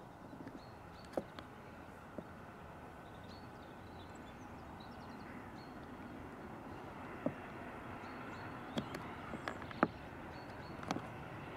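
Distant LNER A4 Pacific steam locomotive working a train, a steady, indistinct running noise that grows slowly louder as it approaches. A few sharp clicks and short bird chirps sound over it.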